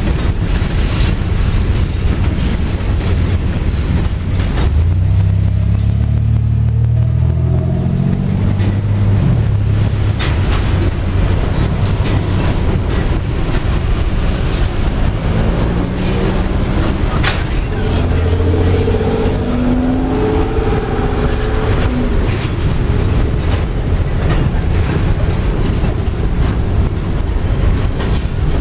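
CSX freight train of tank cars and covered hoppers rolling past with a steady low rumble of wheels on rail and a few sharp clacks. Twice an engine is heard over it, rising in pitch as it accelerates.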